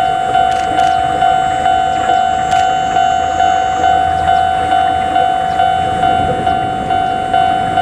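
Railway level-crossing warning bell ringing, a steady electronic ding repeating a little over twice a second. Under it is a low rumble from the approaching electric locomotive, Chichibu Railway Deki 502.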